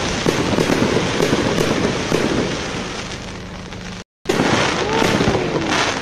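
Fireworks display: dense crackling and popping of bursting shells, one after another, easing off a little before the sound cuts out for a moment about four seconds in, then returning loud.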